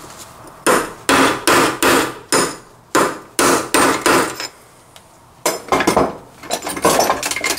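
Hammer blows driving a part down onto a Toyota Corolla gearbox shaft until it sits flush. About seven sharp metal strikes come at roughly two a second, then a short pause, then another quicker cluster of knocks near the end.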